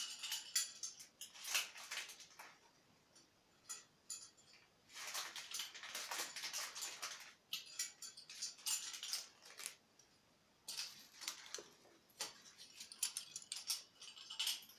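Measuring spoons clinking and scraping as baking powder is scooped out and tipped into a bowl of flour: a run of light clicks and clinks with longer stretches of scraping.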